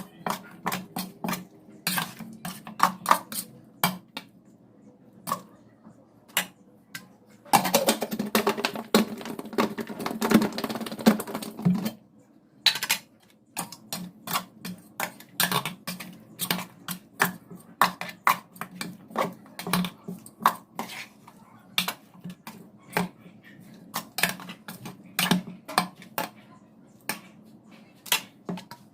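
Kitchenware clattering: dishes, pots and utensils knocking and clinking in irregular taps, with a denser few seconds of rattling and scraping about eight seconds in.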